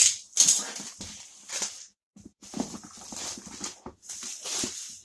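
Plastic shrink-wrap being torn and crinkled off a cardboard board-game box, in a string of irregular rustling bursts.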